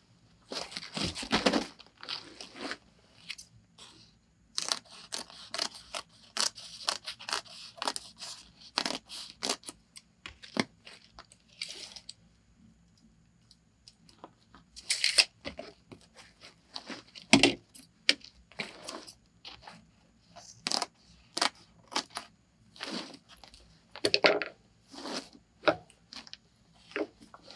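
Foil-faced insulation sheets being handled and laid out on a plank floor: crinkling and rustling in short spells, with scattered clicks and scrapes and one louder knock past halfway.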